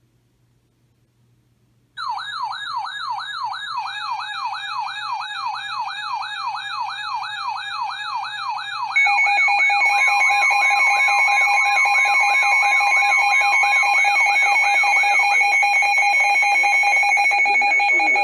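Electronic emergency alert tones. About two seconds in, a fast warbling siren starts, sweeping up and down about four times a second. Steady high tones join it, and from about nine seconds a louder steady alert tone takes over while the warble fades.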